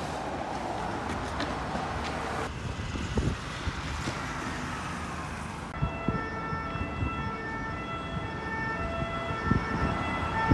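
Steady city traffic noise, then from about six seconds in an emergency-vehicle siren sounding, a steady pitched tone with breaks in it.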